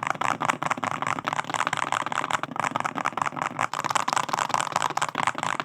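Fast, continuous typing on a custom-built Wooting 60 keyboard with multicolour enamel keycaps: a dense stream of keystroke clacks as the build's typing sound is demonstrated.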